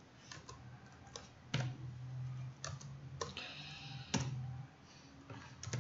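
Computer keyboard keys clicking, a few scattered keystrokes about a second apart, with a faint low hum between some of them.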